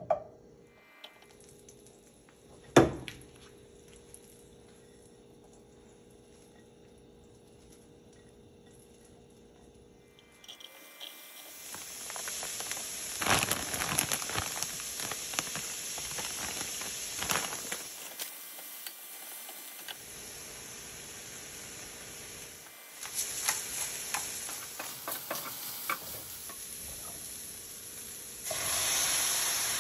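Vegetables sizzling and frying in a pan, the crackling hiss starting about a third of the way in and growing louder near the end. Before it, only a couple of sharp clicks over a quiet background.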